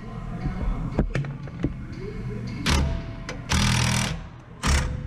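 A few sharp metal clicks, then three short bursts of a power tool, the middle one the longest.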